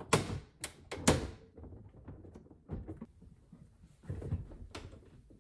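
Knocks and scraping as a Whirlpool over-the-range microwave's metal case is lifted off its wall mounting bracket: three sharp clunks in the first second or so, then quieter shuffling with a couple more knocks near the end.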